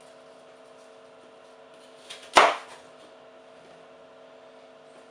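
A kitchen knife chopping through apple onto a wooden chopping board: a light tap, then one sharp, loud chop about halfway through.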